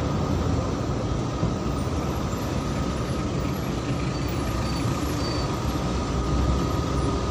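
Steady road and engine noise heard inside a moving car's cabin, with a faint steady whine above it.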